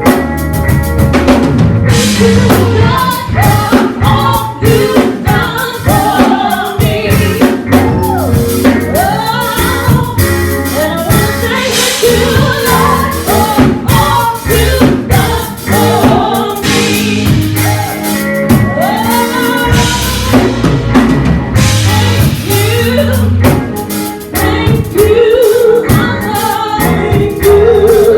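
Gospel worship music played live: singing over a drum kit and a steady bass line.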